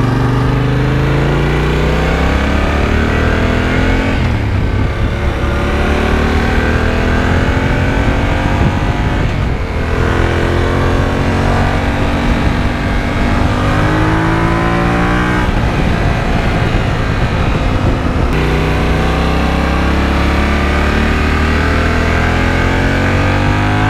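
Yamaha Ténéré 700's 689 cc parallel-twin engine through an HP Corse 4-Track titanium exhaust with its dB killer still fitted, under hard acceleration on the road. The engine note climbs in pitch and drops back at each of several upshifts, then climbs again.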